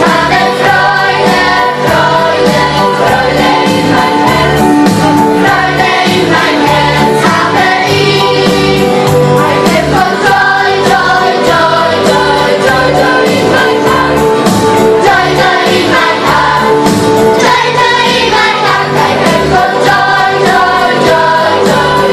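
Children's choir singing over instrumental accompaniment with a repeating bass line.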